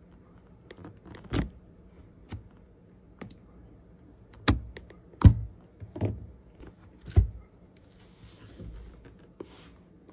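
Hands handling a JBL Flip 6 box and its packaging: about seven scattered knocks and taps, the loudest a little past the middle, then a faint rustle near the end.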